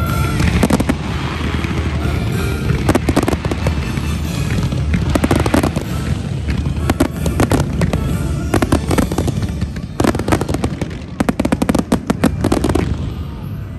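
Fireworks display: a dense barrage of bangs, often in rapid volleys. The barrage dies away near the end.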